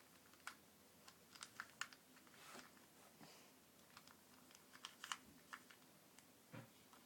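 Plastic clicks and clacks of a 2x2x3 twisty-puzzle cube being turned in the hands, irregular and faint, bunched into quick runs about a second and a half in and again around five seconds, with a brief scrape in between.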